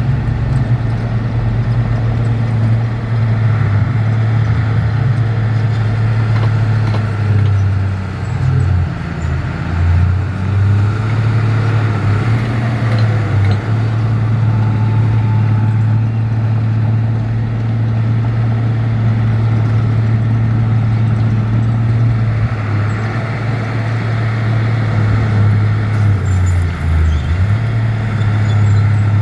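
Heavy diesel earthmoving machinery running steadily, its deep engine note dipping and wavering briefly about eight seconds in and again near the end.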